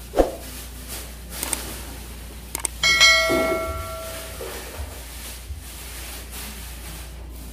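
Metal kitchenware clanks and rings out for about a second, some three seconds in, after a thump near the start and a couple of sharp clicks. A low steady hum runs underneath.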